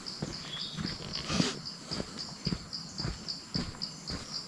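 Insects chirping in a steady high pulsing rhythm, about three or four pulses a second, over footsteps on a brick path. A short, louder noise comes about one and a half seconds in.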